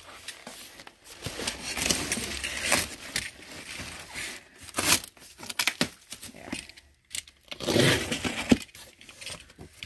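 Utility knife slicing the packing tape along a cardboard box's seam: several scraping cuts, the longest about a second in and again near the end, with a few sharp clicks.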